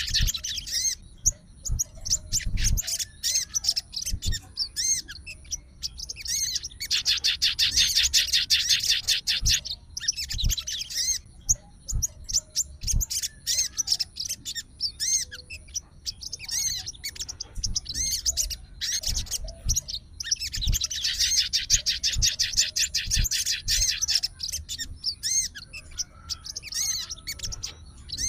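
Sogon bird singing: long, very fast high trills lasting several seconds each, in two main bouts, with short chirps and twitters between them.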